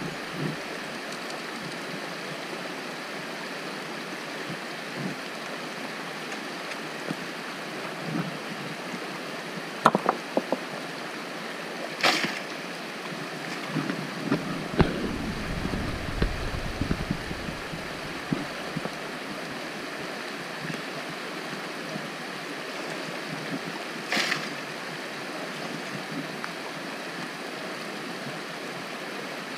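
A shallow, rocky creek rushing steadily, with a few sharp clicks or knocks scattered through it.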